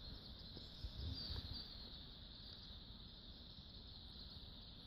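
Faint, steady high-pitched insect chorus, crickets or similar, with a couple of faint low knocks about a second in.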